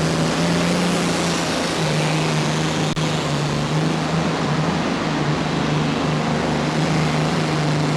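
Multi-engine modified pulling tractor with Allison V-12 aircraft engines running at full power under load during a pull. The pitch is high and steady, edging up slightly in the first two seconds, then holding.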